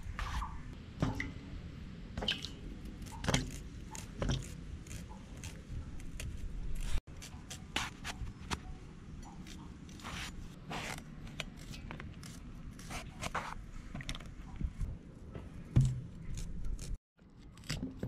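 Knife blade slicing through raw eggplant: a run of short, sharp cuts and scrapes at irregular intervals.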